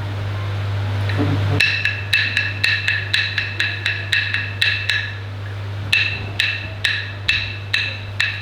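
Aboriginal wooden clapsticks struck in a steady beat, about four ringing strikes a second, breaking off for about a second in the middle and then starting again.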